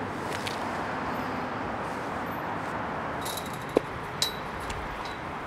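Steady hum of distant traffic, with a couple of sharp metallic clinks a little under four seconds in.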